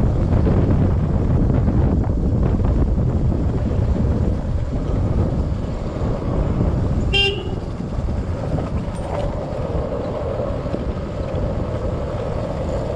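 Wind rushing over the microphone and tyre noise from a KTM Duke 200 coasting downhill with its engine switched off, so no engine is heard. A short horn toot sounds about seven seconds in, and a faint steady tone joins about two seconds later.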